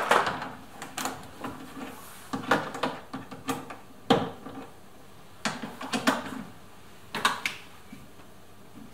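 Irregular metal clicks, taps and knocks from a hand tool and loose parts in a car door's stripped inner panel, as the window regulator motor is being unbolted. They come in short clusters with brief pauses, with one sharper knock about four seconds in.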